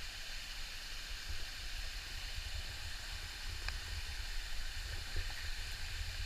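Steady rushing of hot-spring water over rocks, a continuous even wash of noise with a deep rumble, broken by a couple of faint knocks in the second half.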